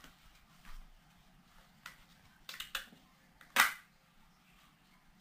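Mechanism of a Panzer Arms BP-12 bullpup shotgun being worked by hand: scattered sharp metal clicks, a quick cluster of them near the middle, and the loudest clack about three and a half seconds in. The parts are stiff, and the owner thinks they may need a little lube.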